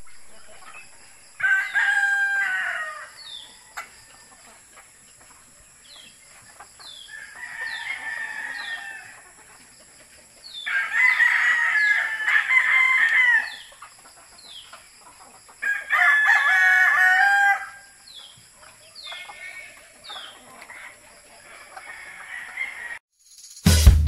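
Roosters crowing, about five long crows, some loud and close and others fainter, with chickens clucking softly in between. Music with a drum beat cuts in right at the end.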